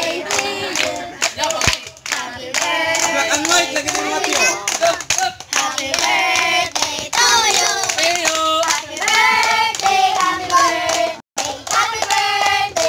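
A group of children and adults singing a birthday song together while clapping their hands, with a brief break about eleven seconds in.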